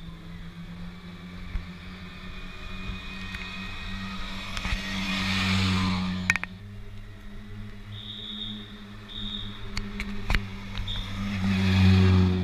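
Rally cars, a Škoda Fabia and then a Ford Fiesta, drive slowly past at low revs. Their engine note swells as each goes close by, about halfway through and again near the end, with a couple of sharp clicks.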